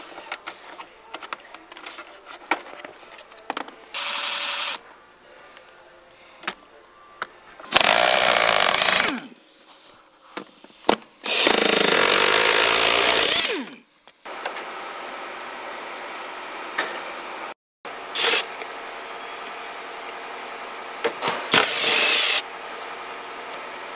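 Power tools run in several short bursts while bolts are backed out of a car's floor. An impact wrench runs twice for a second or two, about a third and halfway through, on the seat-mount bolts. Near the end a cordless drill-driver runs briefly on an amplifier's mounting bolts, and small clicks and knocks of handled tools and parts come in between.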